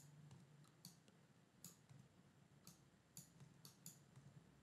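Faint, irregularly spaced computer mouse clicks, about seven of them, over near-silent room tone.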